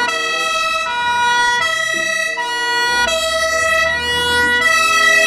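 German fire engine's two-tone siren sounding, alternating steadily between a high and a low tone.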